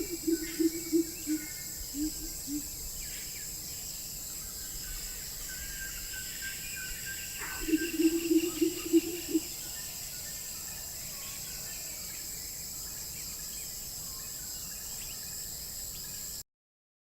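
Outdoor nature sounds: a steady high insect drone with scattered bird chirps, and twice a low, fast-pulsed call lasting a second or two. The sound cuts off suddenly near the end.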